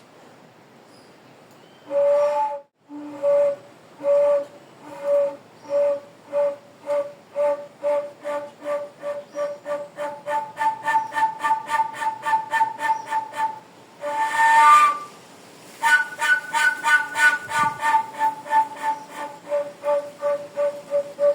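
A bird giving a long series of short whistled notes that speed up from about one a second to about three a second. A second, higher series joins partway through, with a longer, louder call about fourteen seconds in.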